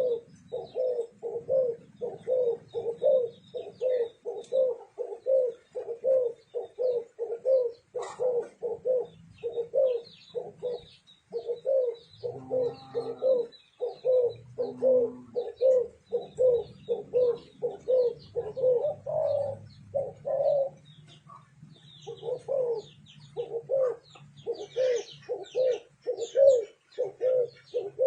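Spotted doves (turtle doves) cooing in a long, rhythmic run of short low notes, a little over two a second, with brief breaks. Faint high chirps of small birds sound above them.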